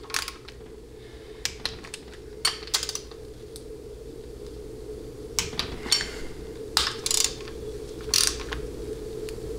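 Scattered short metallic clicks and clinks of a torque wrench and socket being handled and fitted onto the valve body bolts of a 700R4 transmission, over a steady low hum.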